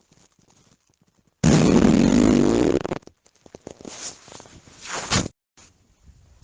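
A loud, buzzy fart lasting about a second and a half, starting about a second and a half in. Quieter scattered noises follow, and the sound cuts off suddenly near the end.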